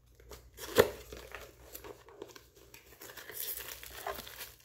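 Cardboard box being handled and opened, its flaps and paper packing rustling and crinkling, with one sharp snap about a second in.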